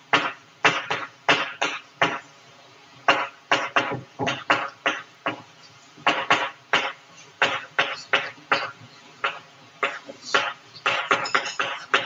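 Chalk writing on a blackboard: a quick, irregular run of sharp taps and scratchy strokes, several a second, with a couple of brief pauses.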